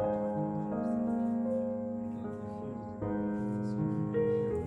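Background piano music: slow, sustained chords that change every second or so.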